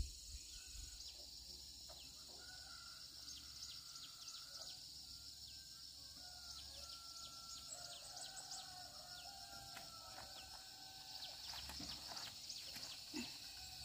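Faint rural outdoor ambience: a steady high hiss with many short bird chirps, and chickens calling faintly in the distance.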